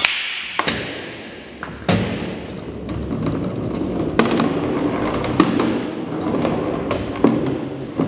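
Pool balls on a table: a sharp, loud crack at the start, then balls rolling across the cloth with a steady rumble, broken by sharp clacks every second or two as they strike one another or the cushions.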